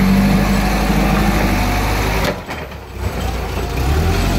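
Hyster 3.00 forklift engine running steadily as the truck drives off carrying a load on its forks; the sound dips briefly a little past halfway.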